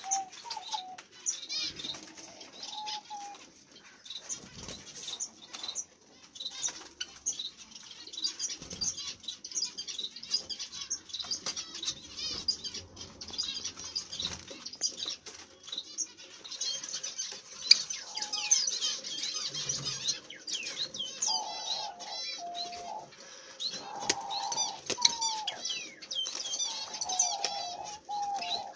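Small birds in a cage chirping rapidly and repeatedly in high, twittering calls, with fluttering and rustling among them. Some lower, held calls join in during the second half.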